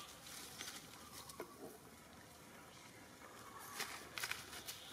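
Faint rustling and crackling of dry leaves and undergrowth being stepped through, with a denser run of crackles near the end.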